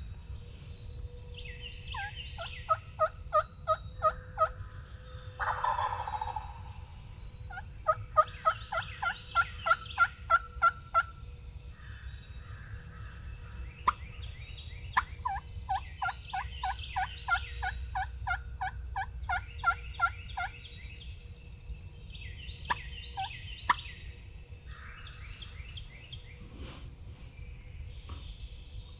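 Wild turkey yelping in four long runs of evenly spaced notes, with songbirds singing higher in the background.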